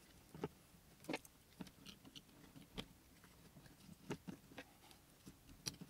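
Faint, scattered small clicks and taps, about seven of them, as wire terminals are pushed onto the switch and brush holders inside a Bosch angle grinder's plastic housing.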